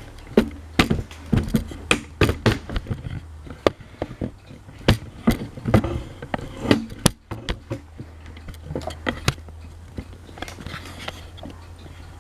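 Irregular sharp clicks and knocks of hard parts being handled, dense for about eight seconds and then sparser, over a steady low hum.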